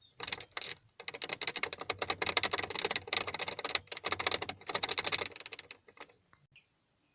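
Key being worked back and forth in a jammed van ignition lock cylinder, a rapid, dense run of small metallic clicks and rattles that stops about five seconds in, followed by a few light clicks. The lock is seized: the key turns only to the first position.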